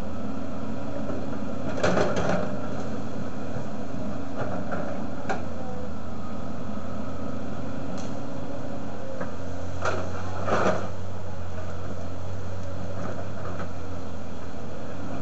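Volvo crawler excavator's diesel engine running steadily while the arm works in trees and brush, with a few sharp cracks of branches snapping, about two seconds in and twice around ten to eleven seconds in.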